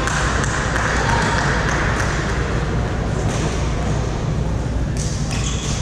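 Busy badminton hall ambience: a steady background of crowd chatter and hum, with a few sharp clicks of rackets hitting shuttlecocks on nearby courts.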